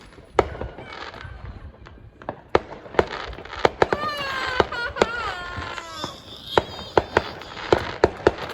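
Fireworks popping: a string of sharp cracks, irregular and at times several a second. A high, wavering squeal that falls in pitch runs from about four to six seconds in.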